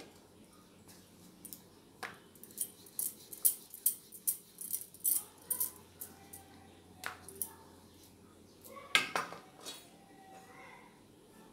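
Rolling pin knocking and clattering against a round rolling board as paratha dough is rolled out: a run of irregular sharp clacks that starts about two seconds in and stops shortly before the end.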